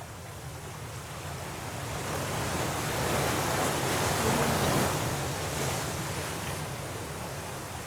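Stormy sea waves: a wave swells to its loudest about halfway through, then washes back and subsides.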